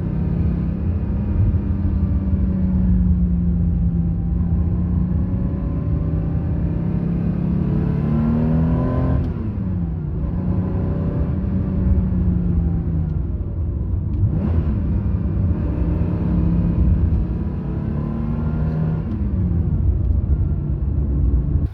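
Freshly rebuilt air-cooled 3.0-litre flat-six of a 1982 Porsche 911 SC, running through a stainless sport exhaust while driving. The revs climb and then drop sharply at a gear change about nine seconds in, dip and rise again about five seconds later, and fall once more near the end.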